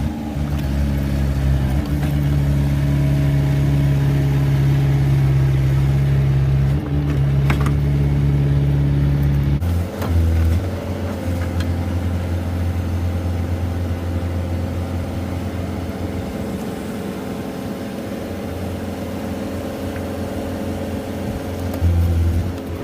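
Boring machine's engine running steadily under load, its note shifting lower about ten seconds in and briefly surging louder near the end.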